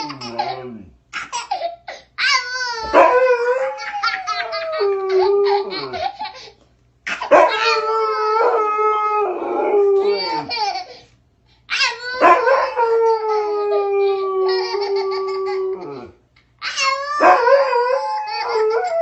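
A dog howling in long, falling calls while a baby laughs, in four bouts separated by short pauses.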